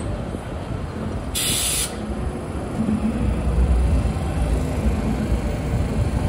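New York City subway train rumbling, growing louder in the second half, with a short hiss of air about a second and a half in.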